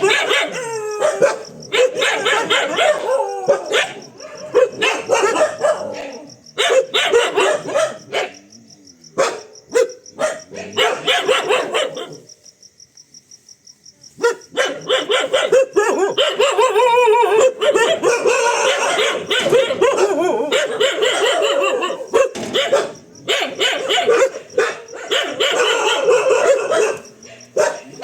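A dog barking rapidly and almost without a break, angry barking at a fake tiger it takes for a threat. About halfway through the barking stops for roughly two seconds, then resumes just as dense.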